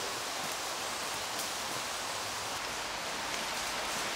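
Steady outdoor rushing noise with a few faint rustles and crackles of footsteps on dry forest leaf litter.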